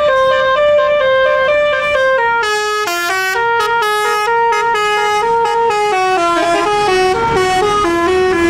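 Bus's Basuri multi-tone telolet horn playing a melody, its notes stepping up and down several times a second without a break.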